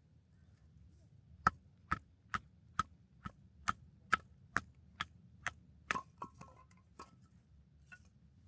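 Rhythmic chopping: about a dozen sharp strikes at a little over two a second, then a few slower, scattered ones.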